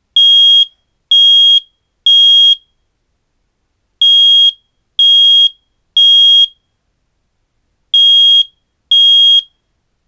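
First Alert SA304 smoke alarm sounding on test: a loud, high-pitched beep about once a second in the temporal-three fire-evacuation pattern, three beeps then a pause, repeated. The third group stops after two beeps as the test ends.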